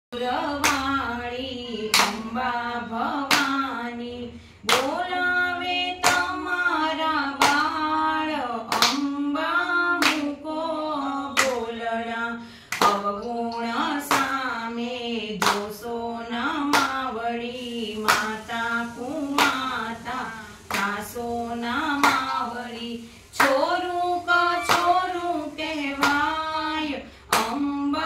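Female voices singing a Gujarati devotional garba together, keeping time with hand claps at a steady beat, roughly three claps every two seconds.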